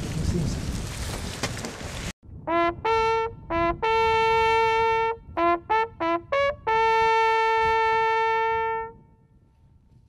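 About two seconds of rustling noise cut off abruptly. Then a small brass hunting horn blows a signal call: a string of short notes jumping between a lower and a higher pitch, with two long held high notes. The call reads as the horn signal for the start of the drive.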